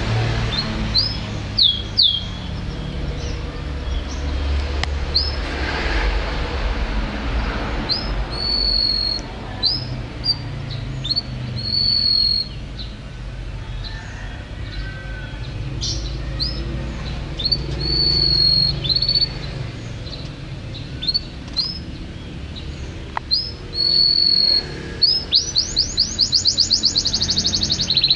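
Domestic canary singing: a string of short high chirps and whistles with several held notes, building into a fast rapid trill near the end.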